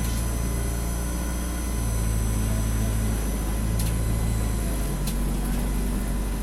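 Ikarus 405 city bus engine heard from inside the passenger cabin, a steady low drone whose note changes pitch about five seconds in. Two short sharp rattles sound a little before and just after that change.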